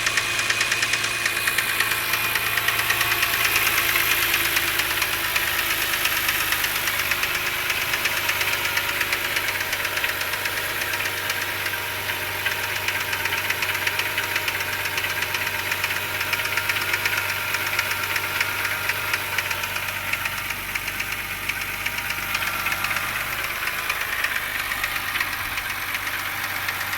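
2007 BMW 328i's 3.0-litre inline-six running steadily with a fast, even knock, the sign of a worn connecting-rod bearing (rod knock).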